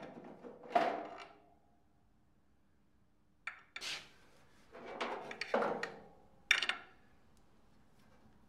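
A series of clunks and scrapes from hard objects being handled and set down, in separate bursts: one about a second in, two around three and a half to four seconds in, and a cluster from five to seven seconds in.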